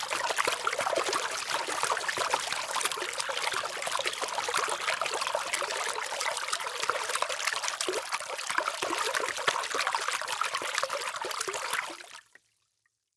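Running water trickling and splashing, a dense patter of small drops, fading out near the end.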